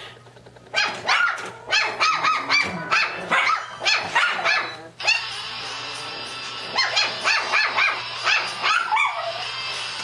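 Dog barks and yips coming several a second in two stretches, mixed with a phone ringtone.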